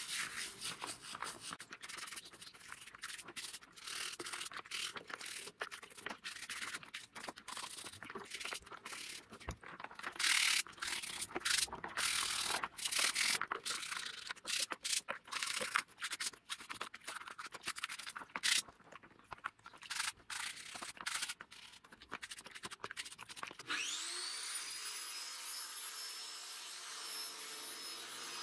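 A stiff plastic scrub brush rubbing back and forth over chainsaw housing parts in soapy water, in quick irregular strokes. About 24 seconds in, an electric angle grinder clamped in a vise spins up with a rising whine and then runs at a steady speed.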